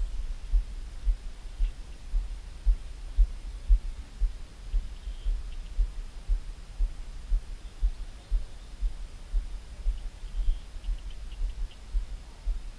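Wind buffeting the microphone: an irregular low thumping rumble, a few pulses a second. Faint short high chirps come through around five seconds in and again a few times near the end.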